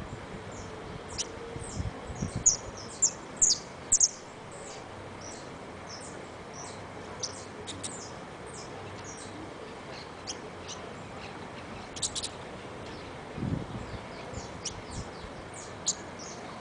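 White saffron finch singing in short, high, scattered chirps, with a denser run of loud notes a few seconds in. It is a bird just starting to sing, its song not yet settled and mixed with a lot of chirring.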